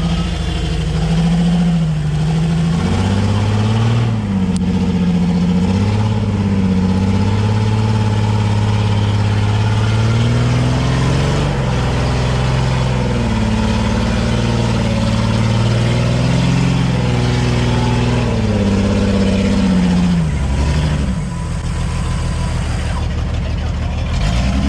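A 4x4's engine running under load, its revs rising and falling over and over as it works through a winch recovery on a muddy hill, with a brief drop in revs near the end.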